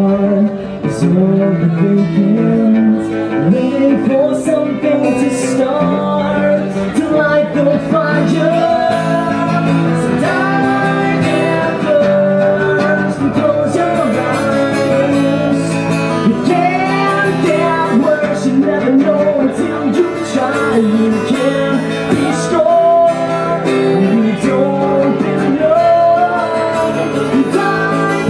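Live acoustic rock song: strummed acoustic guitar with a male lead vocal singing over it.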